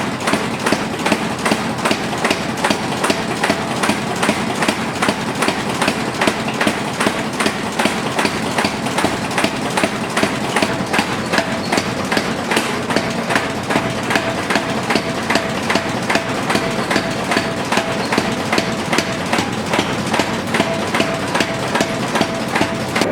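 Hammer blows on hot steel as a thick sword blade is forged, evenly spaced at about three a second without a pause, over a steady hum.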